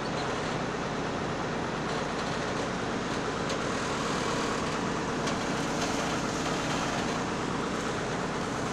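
EIK amphibious excavator's diesel engine running steadily, with a few faint clicks.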